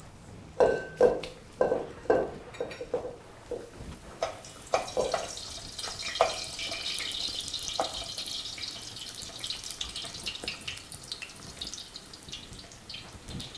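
A few knocks and clatters of cookware in the first few seconds, then a steady sizzle as fry bread dough fries in hot oil.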